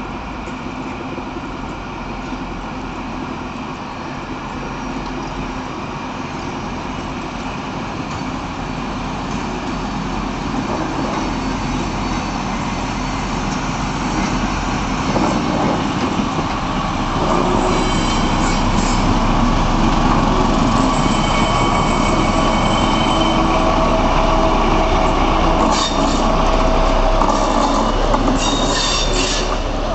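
Class 213 diesel-hydraulic locomotive running slowly while propelling a rake of passenger coaches past, the wheels rolling over the rails. The sound grows louder as the locomotive comes near, and from a little past halfway the wheels squeal on the rails in high thin tones.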